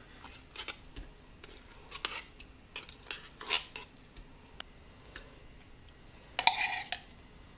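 A spoon scraping and clinking against the inside of a tin can as whole berry cranberry sauce is scooped out, in scattered short scrapes and taps, with a louder run of scraping about six and a half seconds in.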